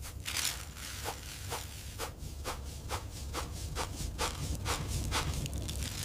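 A seasoning shaker being shaken over potato chips: a rhythmic rattling swish about twice a second, over a steady low rumble.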